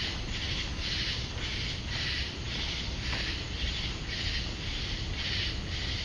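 A chorus of night-singing insects, cicadas, giving a high buzz that pulses about twice a second. A steady low rumble of wind on the microphone lies underneath.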